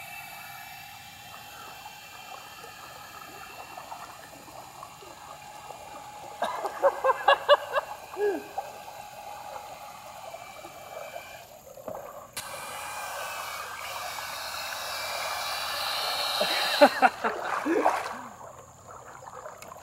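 Cordless drill spinning a propeller to drive a kayak: a steady motor whine over churning water, which turns much louder and noisier from about twelve seconds in, building until near the end as the kayak runs close by at full speed.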